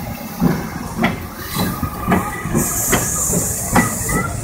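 Saddle-tank steam locomotive Agecroft No. 1 working slowly past, its exhaust beats coming a little under two a second. A loud steam hiss starts about halfway through and lasts over a second.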